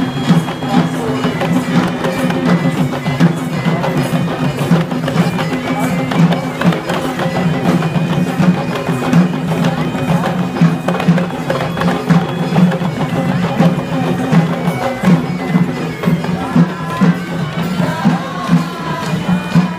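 Traditional Sri Lankan procession music: a troupe of drummer-dancers beating drums in a fast, driving rhythm of sharp strokes, over a steady low drone with a high held melody line.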